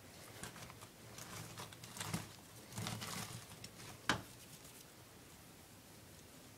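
Faint rustling and scratching of a tegu lizard moving about on bark mulch, with one sharp click about four seconds in.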